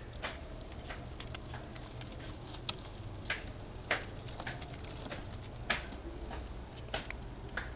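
Albino rodents feeding and scrabbling among dry paper scraps on a cage floor. Irregular small clicks, scratches and rustles come from gnawing and paws, with a handful of sharper ticks. A steady low hum runs underneath.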